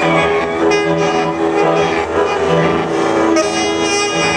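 Live ensemble music of saxophones and prepared guitar: dense held tones over a low note that pulses on and off about twice a second.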